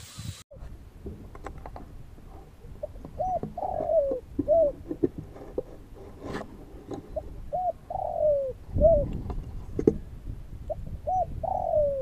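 Spotted doves cooing: three phrases, about three, seven and eleven seconds in, each a few short rising-and-falling notes followed by a longer falling note. A few dull knocks fall between the phrases, the loudest just after the second.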